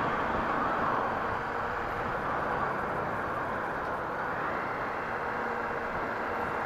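Honda XRE 300's single-cylinder engine running steadily as the motorcycle rides along, under a steady rush of wind noise on the helmet camera's microphone.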